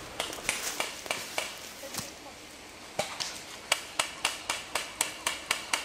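Airsoft guns firing single shots: a few scattered cracks at first, then from about three seconds in a steady string of shots, about four a second.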